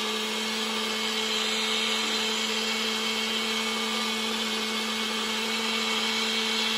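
Electric blender motor running at a steady speed with a constant hum and whir, puréeing pennywort leaves in coconut water.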